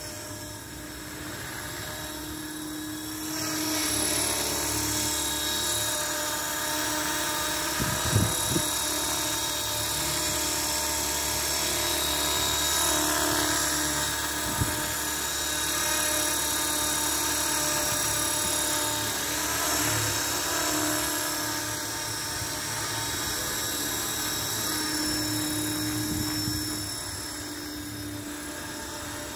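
Align T-Rex 450 V2 electric radio-controlled helicopter flying, its motor and main rotor giving a steady high whine with several held tones. The whine grows louder a few seconds in as the helicopter comes close and fades near the end as it moves away. Two brief low thumps come about a quarter of the way in and near the middle.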